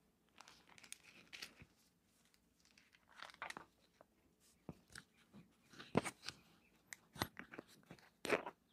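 Faint rustling and crinkling with scattered light clicks and taps as things are handled on an altar table, with a louder rustle about six seconds in and another near the end.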